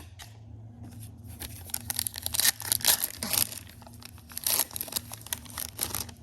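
A foil Magic: The Gathering booster pack wrapper being torn open and crinkled, in crackly bursts that are loudest in the middle.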